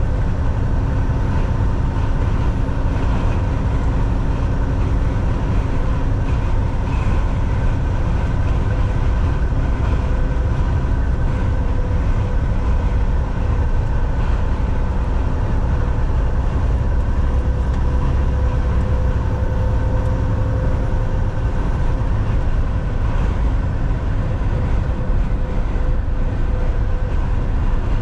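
Semi-truck driving at highway speed: a steady low rumble of engine and road noise, with a constant hum of a few fixed tones over it.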